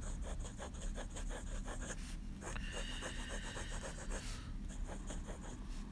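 Montblanc Meisterstück fountain pen's medium nib scratching across notebook paper in quick back-and-forth zigzag strokes. The scribble runs up and down, then side to side about halfway through, then back to short strokes near the end.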